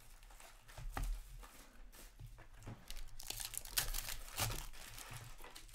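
Foil wrapper of a trading card pack crinkling and tearing as it is pulled open by hand, in irregular crackles that are thickest about three to four and a half seconds in.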